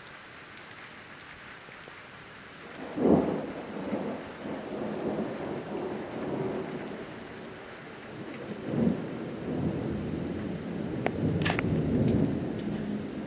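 Thunder: a sharp clap about three seconds in that rolls into a long low rumble, swelling again near the end. Rain falls steadily underneath.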